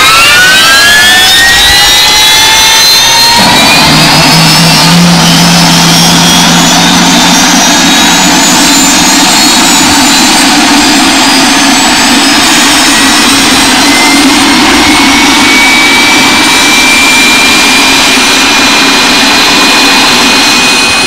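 Motorcycle engine pulling under acceleration, its pitch climbing fast at first and then rising slowly, under loud, steady wind rush on the phone's microphone.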